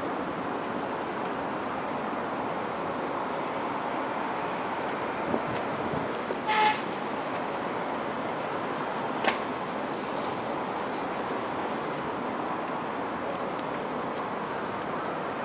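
Steady urban traffic noise, with a short horn toot about halfway through and a sharp click a few seconds later.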